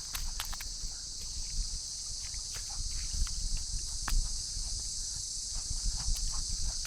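Steady high-pitched chorus of insects, with scattered light clicks of footsteps on the stones of a creek crossing, over a low rumble.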